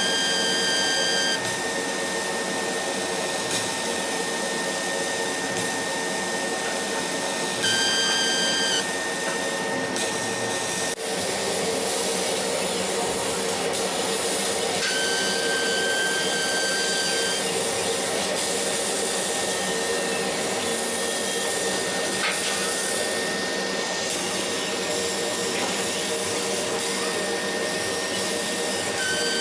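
CO2 laser cutter cutting, with a steady hiss of air and extraction, and a high-pitched whistle with overtones that comes and goes, each time lasting a second or two: at the start, about 8 seconds in, again for about two seconds in the middle, and at the very end. The owner takes the whistle to come from the laser beam itself at the nozzle, a sign of a fault that goes with incomplete cuts and a shift on the tube's milliammeter.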